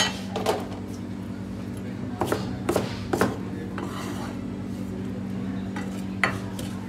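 About half a dozen sharp knocks of a large kitchen knife against a cutting board as sliced onions are scraped up and tipped into a steel bowl, over a steady low hum.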